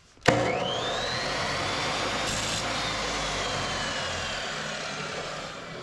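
Abrasive chop saw with a metal-cutting blade switched on: the motor starts suddenly and its whine rises in pitch as the blade spins up. It then runs steadily, and the pitch sinks slowly near the end.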